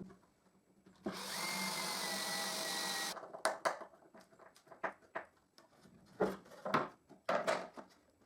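Power drill-driver running for about two seconds, driving a wood screw through the sled's fence strip, with a faint whine that sinks slightly as it runs. Several short knocks and clicks follow.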